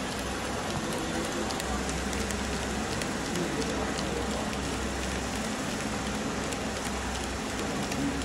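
Artificial-insemination straw printing machine running: a steady noisy hiss over a low hum, with faint, irregular clicks as printed plastic straws drop into the metal collection tray.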